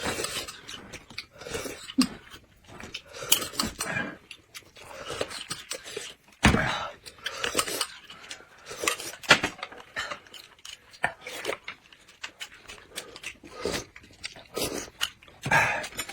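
Close-miked eating sounds: irregular chewing and biting, with chopsticks and bowls clinking now and then.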